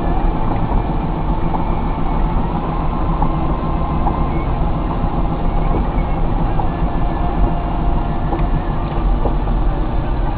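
Steady low rumble of a car interior on the move: road and engine noise inside a taxi cab.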